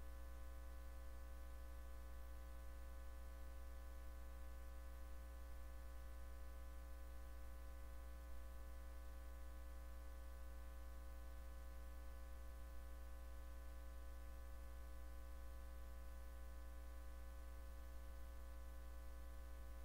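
Faint, steady electrical hum: a low drone with a ladder of steady higher tones above it, unchanging throughout.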